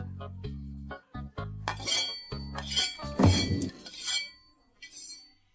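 Chopsticks clinking several times against a ceramic bowl while eating, over background music with a bass line that stops about three seconds in.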